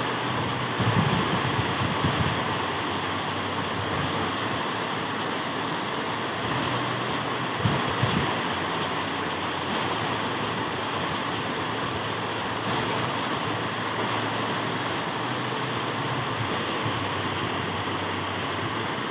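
Heavy rain pouring down steadily in strong wind, a constant rushing hiss. A few low thumps, like wind buffeting the microphone, come about a second in and again about eight seconds in.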